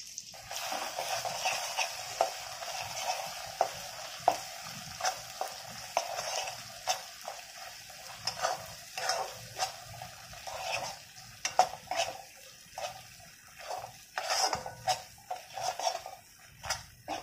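Ground masala frying in hot oil in a kadhai: a steady sizzle that starts about half a second in, with a spoon scraping and knocking against the pan at irregular intervals as the masala is stirred and sautéed.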